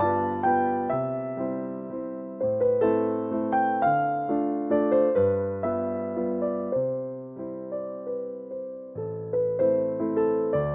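Background piano music: a melody of single struck notes that fade out, played over held low bass notes.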